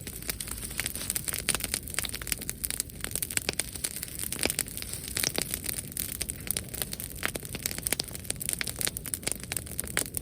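Wood bonfire crackling, with frequent irregular pops and snaps over a steady hiss.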